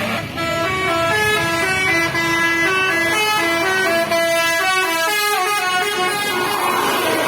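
Tour bus 'telolet' musical air horn playing a quick tune of short notes that step up and down in pitch. About six seconds in the tune stops, leaving a rushing noise.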